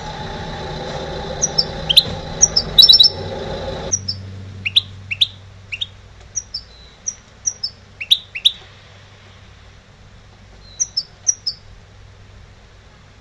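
Caged goldfinch-canary hybrid (a green goldfinch mule) singing in bursts: sharp high chirps, quick falling notes and short rapid trills, with gaps between phrases. A steady low hum lies underneath for the first four seconds and then stops.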